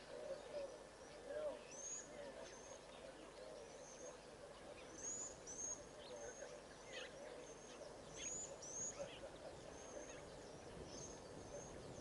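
Faint wild birds calling. Short, high whistled notes that rise and fall repeat every second or so, often two or three together, over softer, lower calling, against a steady background hiss.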